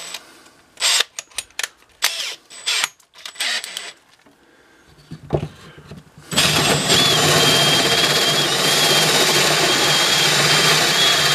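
A few sharp clicks as the hole saw arbor is fitted into the drill chuck. About six seconds in, a cordless drill spins up and runs steadily, driving a hole saw on a pilot mandrel to enlarge a hole in a plywood board. A steady whine sits over the cutting noise.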